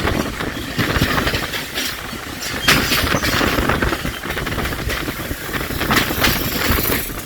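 Train running along the track: a steady rumble with irregular clicks of the wheels passing over rail joints.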